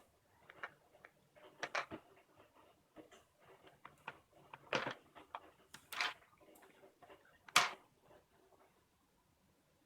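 Plastic Play-Doh toy pieces being handled: a scattered series of sharp clicks and knocks, a few close together about two seconds in and the loudest one about two thirds of the way through.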